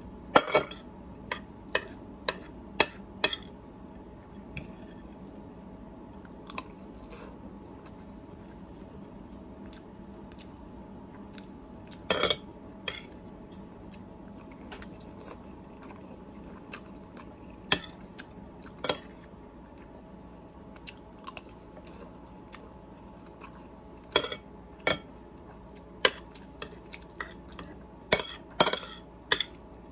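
A metal fork clinking and scraping on a plate of ramen noodles in sharp, scattered taps, some in quick clusters, with chewing of noodles in between.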